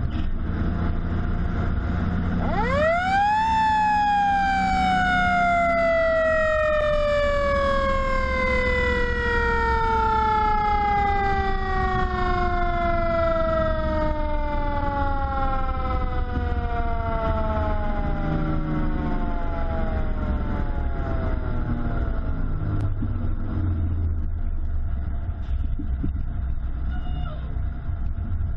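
A fire truck's mechanical siren winds up sharply in about a second, then coasts down in one long falling wail that fades out about twenty seconds later. The truck's engine and tyres drone steadily underneath.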